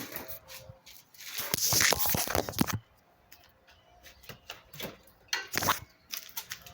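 Handling noise from a tangled chainsaw chain being worked by hand: a rustling, scraping clatter lasting over a second, starting about a second in, and a shorter one near the end, with scattered small clicks between.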